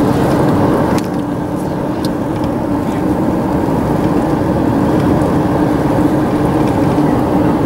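Car driving along a paved highway, heard from inside the cabin: steady engine and road noise with an even hum.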